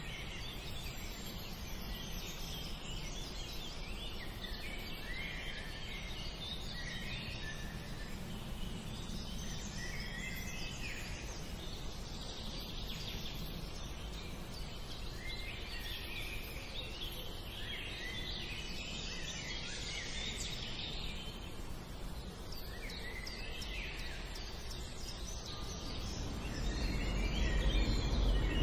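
Outdoor ambience: birds chirping and calling on and off over a steady low rumble. The rumble grows louder near the end.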